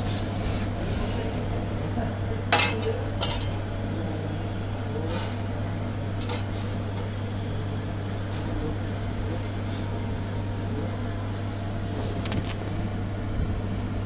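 Kitchen noise around a wood-fired pizza oven: a steady low hum, with two sharp metallic clinks about two and a half and three seconds in.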